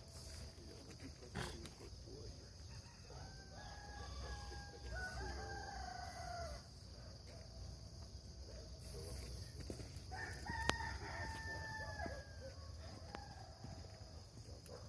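A rooster crowing twice, each crow drawn out over two to three seconds, over a steady high hiss.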